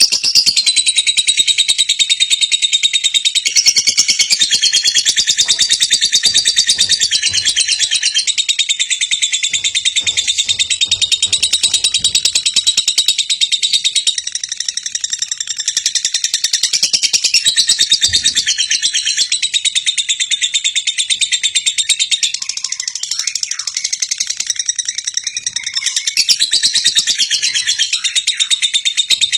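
Lovebird singing a long, unbroken chattering trill of very fast, high-pitched repeated notes.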